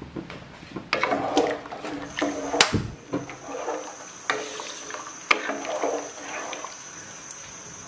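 A wooden spoon stirring hot water into mashed potatoes in a metal pot: liquid sloshing, with irregular knocks of the spoon against the pot. A steady high-pitched whine sets in about two seconds in.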